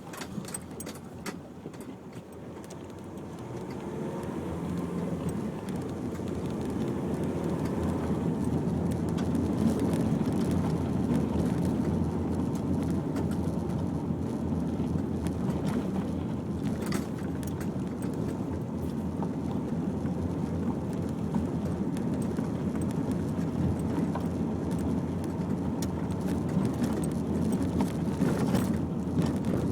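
Nissan X-Trail driving along a rough unsurfaced green lane: engine and tyre noise grows louder and the engine pitch rises over the first several seconds as it picks up speed, then runs steadily, with scattered knocks and rattles from the bumpy track.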